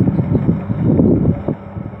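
Komatsu D65PX crawler dozer's diesel engine working under load as its blade pushes soil, with gusts of wind buffeting the microphone; the gusts ease off about a second and a half in.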